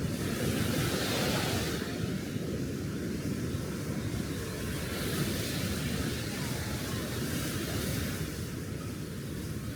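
Small waves washing onto the beach, the hiss swelling twice as they break, over a steady low rumble of wind buffeting the microphone.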